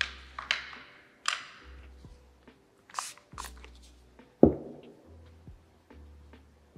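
Painting handling sounds: a brush swishing and dabbing on paper and on a plastic paint palette, with light scrapes and taps. One sharper knock on the table about four and a half seconds in is the loudest sound.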